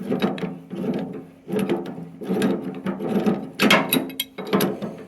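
Ratchet wrench worked back and forth in a series of short strokes, clicking as it loosens a fitting on a tractor loader's hydraulic lift cylinder.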